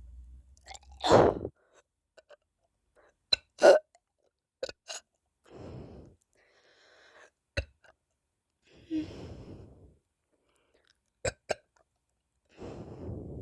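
A person burping in a series of short, abrupt burps, the loudest about a second in, with breaths between them.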